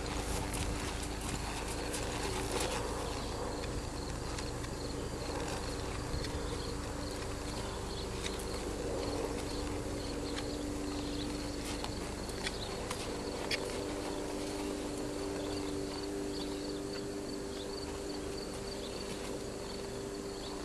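Soft, muffled hoofbeats of a Quarter Horse walking on loose sandy dirt, slowing to a halt near the end. Insects chirp steadily behind it, with a steady low hum.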